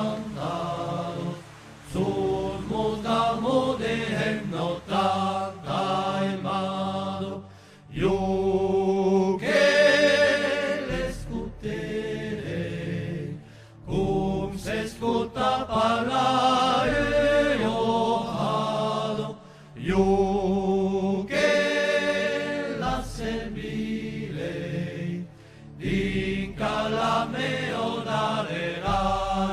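Background music: a slow song with a sung, chant-like vocal, in phrases of about six seconds separated by short breaks, over a low bass.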